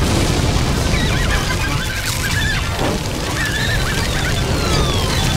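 Cartoon soundtrack of a burning-building scene: music over a dense low rumble of flames, with high wavering squeals about a second in and again past three seconds, and falling whistles near the end.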